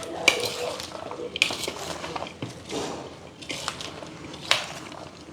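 Rice salad being stirred and tossed in a bowl with a serving utensil: irregular clinks and scrapes of the utensil against the bowl, with a soft, moist squish of the dressed rice and leaves.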